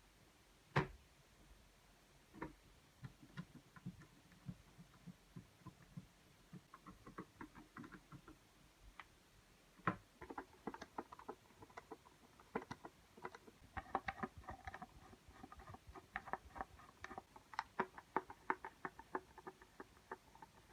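Irregular small clicks and taps of hard plastic keyboard parts being handled, sparse at first and coming thick and fast from about ten seconds in.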